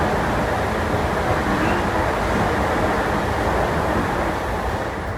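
Toei 10-300 series electric train in motion, heard from on board: a steady rumble and rush of wheels on rail, easing off slightly near the end.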